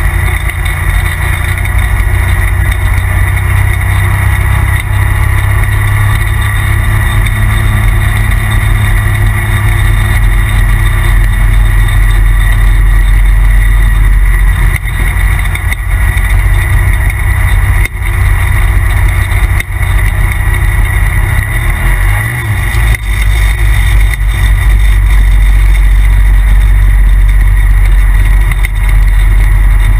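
2017 Polaris RZR Turbo side-by-side's engine running loud and steady under way, with a couple of short dips near the middle.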